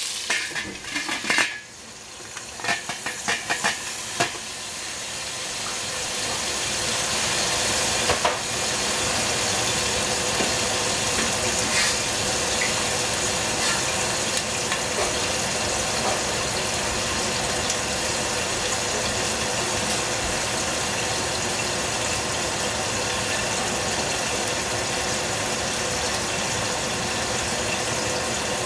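A stainless steel lid clinks and rattles onto a cooking pot several times in the first few seconds. Then the sliced squash inside sizzles under the lid: a steady hiss that builds over several seconds and holds.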